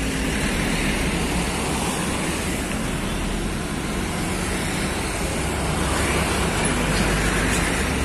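Steady road traffic noise: vehicle engines running along with tyre noise, with a steady low drone.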